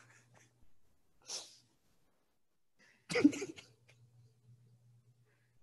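A sudden, forceful burst of a person's voice about three seconds in, with a shorter breathy rush just over a second in, over a faint steady low hum.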